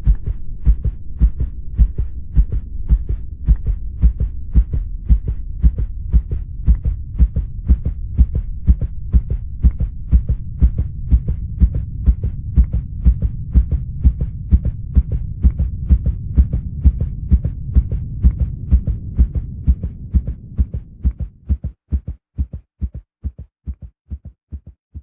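Heartbeat sound effect: a fast, even run of low thudding beats over a low drone. The drone fades out near the end, leaving the beats alone, which then thin out.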